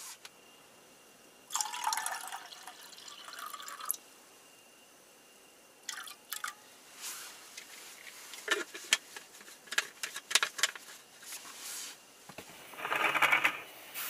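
Water pouring at a stainless steel gooseneck kettle for a couple of seconds, then a scatter of drips and light clicks, and another short pour near the end.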